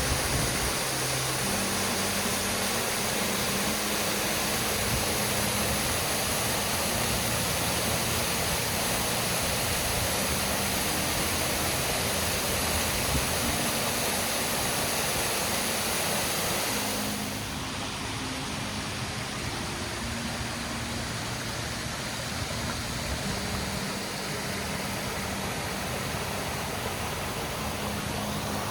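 Waterfall's steady rush of falling water. About two-thirds of the way through the sound turns duller and slightly quieter.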